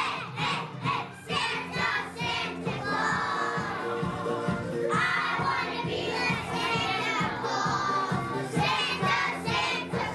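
A group of young children singing and shouting loudly along to a recorded backing track with a steady beat.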